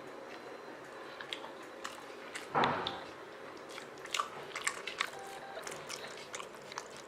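A person chewing food, with small scattered clicks and mouth smacks and one brief louder sound about two and a half seconds in.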